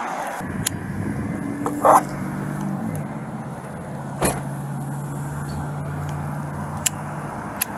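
A vehicle engine idling with a steady low hum that steps down slightly in pitch about three seconds in. Over it come a few sharp clicks and one brief, louder sound about two seconds in.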